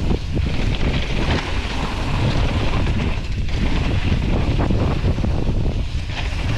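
Wind rushing over the microphone of a mountain bike descending a dry dirt trail at speed, with tyre rumble and scattered rattling knocks from the bike.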